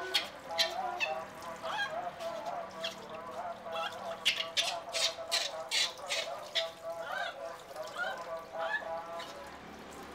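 Baby macaque crying in distress while being washed, a run of repeated short, wavering squealing calls. Water splashes in a stainless steel sink in the background, heard as sharp short noises between the calls.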